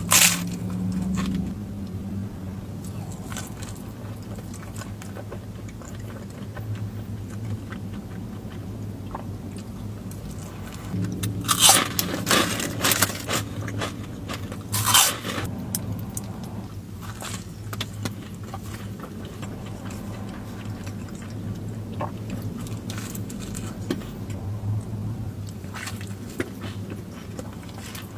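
A person biting and chewing crunchy food, with scattered crunches that come loudest in a cluster around the middle. Under it runs a steady low hum like a car cabin.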